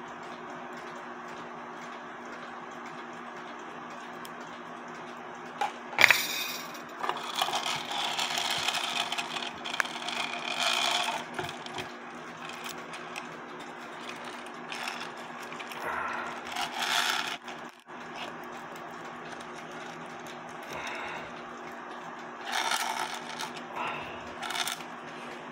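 Handling noises of a cuckoo clock's chains and movement being worked out of its case: a sharp knock about six seconds in, then spells of metallic rattling and scraping, over a steady low hum.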